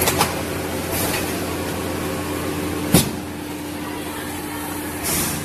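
Thermoforming vacuum packaging machine running with a steady hum, a sharp clack about three seconds in and a short hiss near the end.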